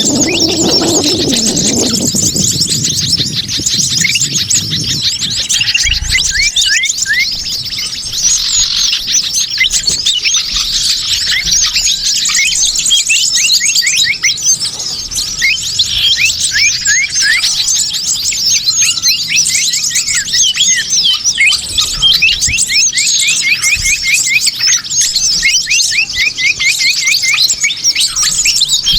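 Bird-lure recording: a dense, continuous chorus of many small birds chirping and twittering at once, with rapid overlapping short chirps. A lower sound that falls in pitch fades out in the first couple of seconds.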